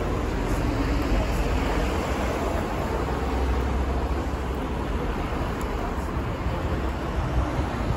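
Steady city street traffic noise: a continuous low rumble of road vehicles.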